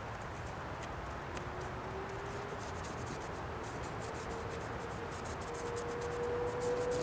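Paintbrush strokes rubbing and scratching on a painting's glossy surface, a series of small soft scrapes. Behind them is a steady low outdoor rumble and a faint hum that slowly rises in pitch from about a second and a half in.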